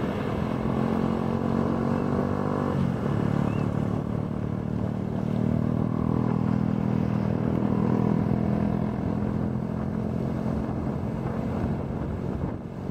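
A motor engine running steadily with an even hum, its pitch stepping down about three seconds in.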